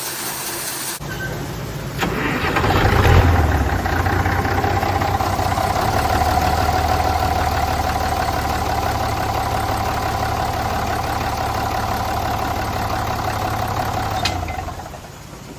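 Tractor engine picking up about two seconds in, swelling briefly, then running steadily with a whine over it, and dropping away near the end, as the wagon is pulled ahead.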